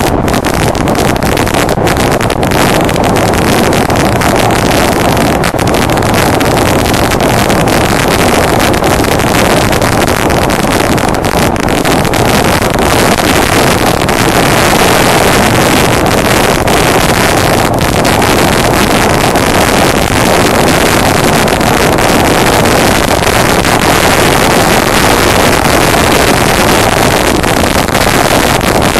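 Honda Deauville NT650V motorcycle riding at steady road speed: loud, steady wind rush on the microphone with the 650 cc V-twin engine running beneath it.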